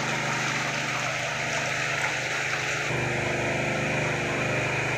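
Water pump running steadily, with water rushing through it as a tank is emptied toward the drain.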